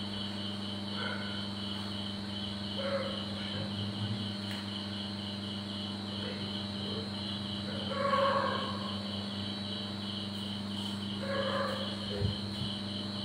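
Crickets chirping in a steady, even pulsing rhythm over a steady low electrical hum, with a few faint brief sounds every few seconds, the clearest about eight seconds in.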